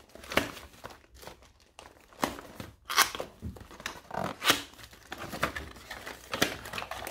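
A thin cardboard retail box being opened by hand, its tab and flap pulled free and the cardboard crackling and scraping. It comes as a series of irregular crackles, the loudest about three and four and a half seconds in.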